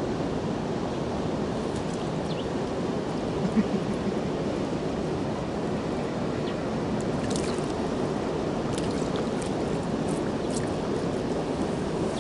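Steady rush of flowing river water. A brief thump about three and a half seconds in, and a few faint short high ticks in the second half.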